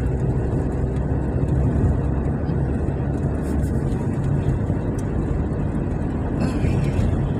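Steady in-cabin drone of a car driving at road speed: low engine and tyre rumble on worn, patched asphalt that the occupants call a terrible road.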